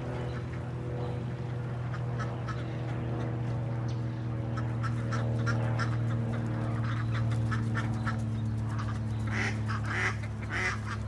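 Mallard ducks quacking in short repeated calls that come thicker and louder toward the end, over a steady low hum.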